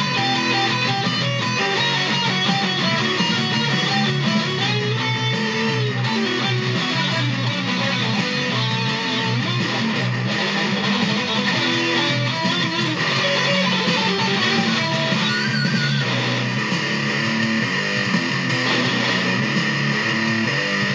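Two electric guitars played together without a break.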